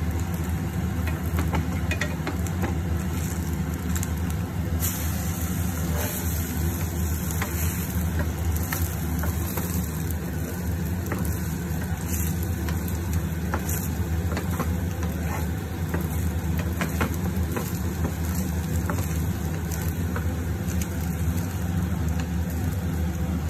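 Egg-soaked bread slices sizzling as they fry in a nonstick pan, with occasional short scrapes and taps of a spatula against the pan, over a steady low hum.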